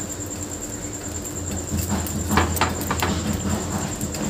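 Steel spatula scraping and tapping on an iron dosa tawa as it presses slices of bread toasting on it, with a run of short scrapes about two seconds in, over a low steady hum.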